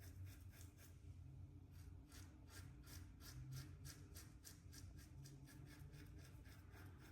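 Faint scratchy strokes of a Leaf Thorn razor cutting lathered stubble, several short strokes a second.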